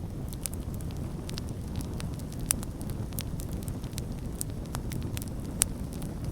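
Campfire crackling and popping over a steady low rush. Frequent sharp crackles, with louder pops a little after two seconds and near the end.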